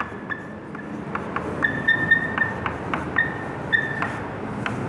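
Chalk writing on a blackboard: scratchy strokes with many short taps as the chalk strikes the board, and several brief high-pitched squeaks.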